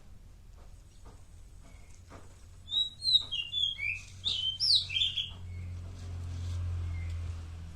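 Pet songbird chirping a quick run of short, gliding notes for about two and a half seconds, starting a few seconds in. A low steady hum swells up underneath after the chirps end.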